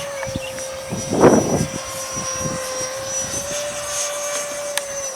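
E-flite Viper 64mm electric ducted-fan model jet flying past with a steady high whine that shifts slightly in pitch. A brief gust of wind buffets the microphone about a second in.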